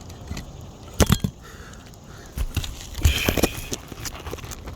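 Roofing work on asphalt shingles: a few sharp knocks about a second in, then a cluster of knocks with crackling scrapes around three seconds in, as a new shingle is worked into place under the course above.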